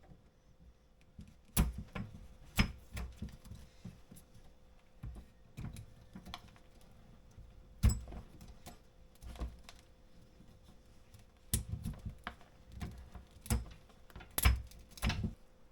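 A dull knife digging and prying at an old, hardened cork rod handle down to the graphite blank: irregular sharp clicks and knocks, a few much louder than the rest.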